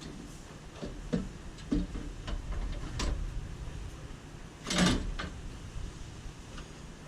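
Scattered clicks and knocks of parts and tools being handled at a car's radiator core support, with one short, louder scrape about five seconds in.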